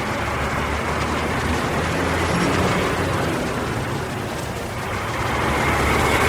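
Bus engine running with a steady low hum under a broad road rush, swelling a little midway and again near the end.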